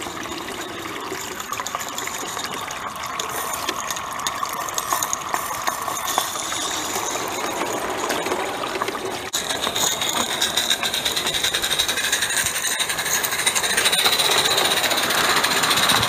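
Live-steam Accucraft Ruby garden-scale locomotive running while switching cars, a steady hiss with fast, rattling exhaust beats and wheel noise. The sound breaks off briefly about nine seconds in and comes back louder and closer.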